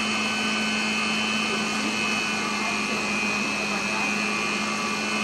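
Electric stand mixer running steadily on medium speed, beating cake batter: a constant motor hum with a high whine over it.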